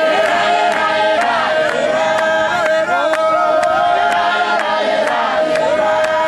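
A congregation singing a hymn together, with one long held note, over steady handclaps about twice a second.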